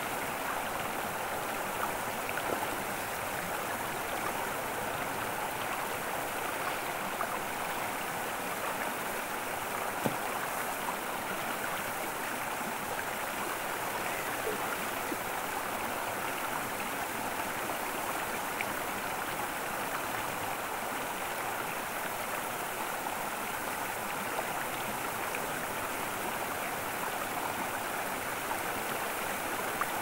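Running water rushing steadily and evenly, the continuous sound of flowing water.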